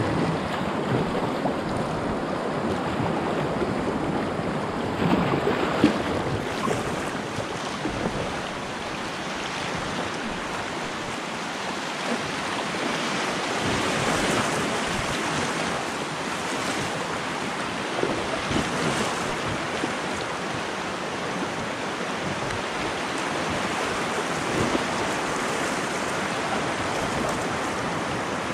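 Creek water rushing over shallow rocky rapids around a packraft, steady throughout, with occasional paddle splashes; the loudest is a brief splash about six seconds in.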